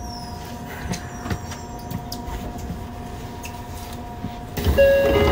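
Inside a Yokohama Municipal Subway 3000A car: a steady electrical hum with a few light clicks. About four and a half seconds in, a sudden, much louder rumble of rail noise sets in.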